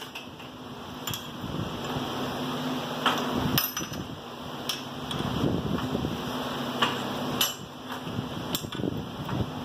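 Hand-lever rebar bending machine at work on steel rebar: about eight sharp metallic clanks at irregular intervals as the lever and rods knock against the bender's roller and pin. A steady low hum runs underneath.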